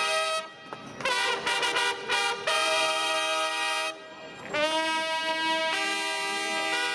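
Brass band playing held chords, with quicker notes about a second in and short breaks about half a second and four seconds in.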